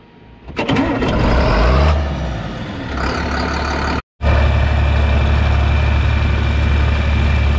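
Diesel tractor engine starting up about half a second in and rising in pitch, then, after a brief drop-out near the middle, running steadily with a deep hum.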